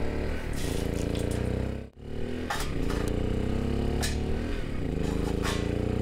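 A steady engine-like hum runs throughout, with a few sharp metallic clinks and scrapes from steel tongs in a stainless steel pan of water.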